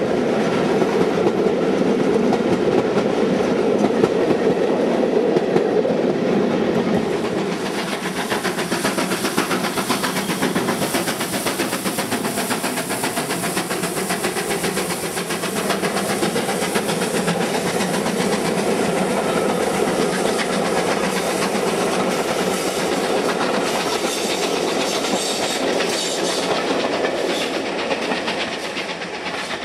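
GWR Castle-class 4-6-0 steam locomotive 5029 Nunney Castle and its train of coaches passing at speed, with steady wheel clatter over the rail joints. The sound changes character about seven seconds in, as a second passing is heard.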